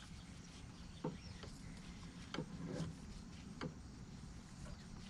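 A few faint, sparse clicks and light knocks of tools and metal parts being handled, over a low steady hum.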